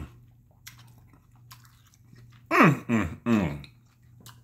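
A man chewing a mouthful of scallop with faint wet clicks of the mouth, then, about two and a half seconds in, three loud hums of enjoyment, each falling in pitch.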